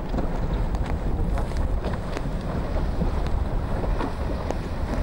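Wind buffeting the microphone with a steady low rumble over the rush and splash of choppy sea water.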